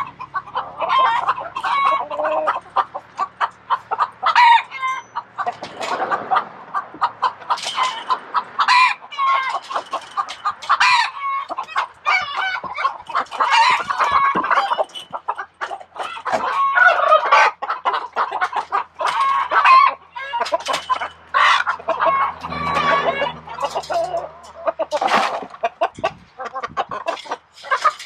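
A flock of chickens clucking continually. Short scrapes and knocks from a hoe working through old straw on the coop floor come in between the calls.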